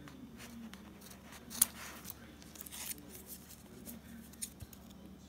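Scissors snipping through Mod Podge-coated, fabric-covered card stock: a series of short, crisp cuts, the loudest about a second and a half in.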